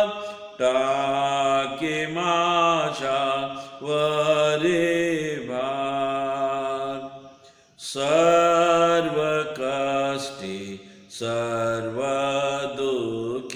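A man singing a Marathi hymn solo, with no accompaniment, in long held notes, pausing briefly for breath between lines.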